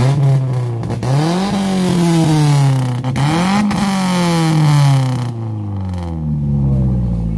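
Modified Toyota Kijang Grand Extra's engine revved twice through a loud aftermarket exhaust. Each rev rises quickly and falls back slowly, and the engine settles to idle near the end.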